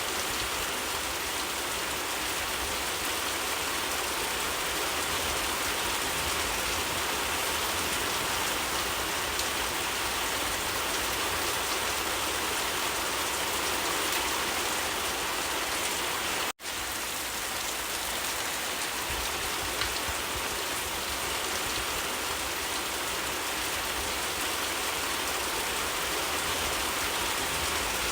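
Steady rain falling, an even hiss, with the sound cutting out for an instant about two-thirds of the way through.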